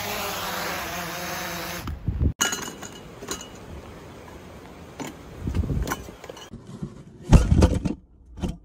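A small folding quadcopter drone's propellers whirring as it lands, cutting off about two seconds in. Then light clinks and rattles of camping gear being packed into a cooler, with a few dull knocks, the loudest near the end.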